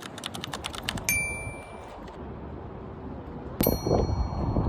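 Quick clicks like typing for about a second, then two bright bell-like dings, one a little after a second in and a sharper one near the end, each ringing out for about a second.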